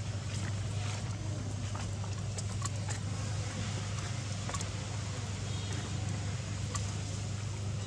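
Steady low hum under outdoor background noise, with a few faint scattered clicks.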